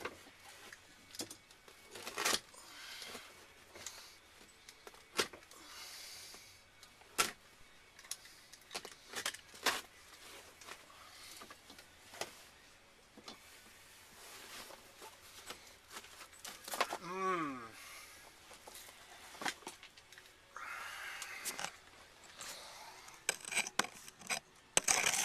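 Scattered clinks, knocks and scraping of hand tools and loose material as rotted floor and carpet are worked out of an old car's interior, with a short rising squeak about 17 seconds in.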